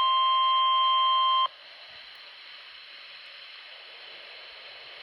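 Steady electronic alert tone from a weather-radio emergency broadcast, cutting off abruptly about a second and a half in, followed by a steady low radio hiss.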